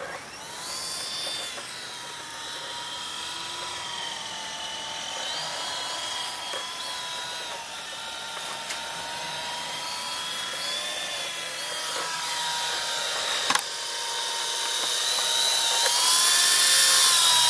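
F645 RC helicopter's electric motor and rotor whining steadily and growing slowly louder, with a single sharp click partway through. Its pitch rises about sixteen seconds in as the helicopter lifts off.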